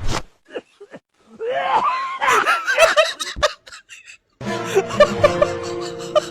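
A few short knocks, then a couple of seconds of overlapping voices gliding up and down in pitch. Background music with a repeating melody starts about four seconds in.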